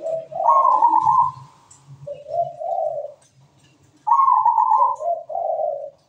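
Zebra dove (perkutut) cooing, two phrases of its song: each opens on a higher note and drops to two lower coos, with a short pause between the phrases.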